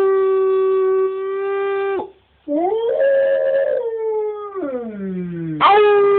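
Husky/wolf hybrid dog howling in long drawn-out notes: a steady howl that stops about two seconds in, a second that wavers and then slides down in pitch, and a third that begins just before the end.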